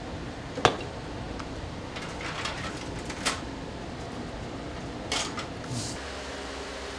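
Kitchen clatter: a few sharp clinks and knocks of dishes and utensils, the loudest about half a second in, over a steady background hum.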